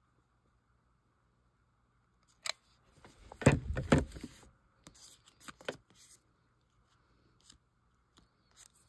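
Near silence at first, then hands handling paper and trim: a single click, a short cluster of rustles and knocks about three to four seconds in, then a few light ticks.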